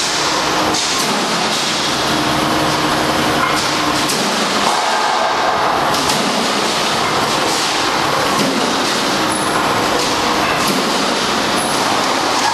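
Steel coil decoiler and two-wave guardrail roll forming line running: steady, loud mechanical noise with a faint hum and a few brief clicks.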